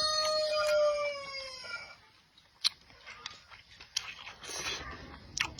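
A rooster crowing: the tail of one long drawn-out call that falls slightly in pitch and fades about one and a half seconds in, followed by a few sharp clicks.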